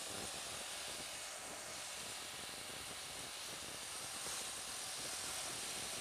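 Steady rush of wind and road noise from a moving motorcycle, picked up by the rider's camera.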